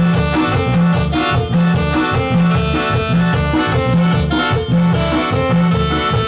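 A live band playing dance music with a steady beat and a prominent, pulsing bass line.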